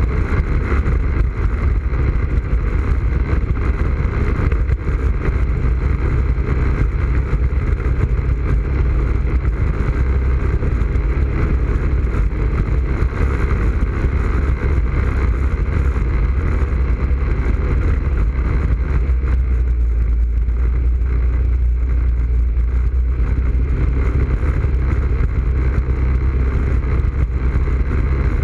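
ATV engine running steadily as the quad rides along a muddy dirt trail, heard up close from its front rack.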